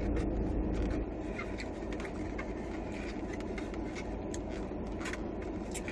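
Light clicks and scrapes of a plastic fork in a takeout food container, with quiet chewing, over a steady low rumble inside a car's cabin.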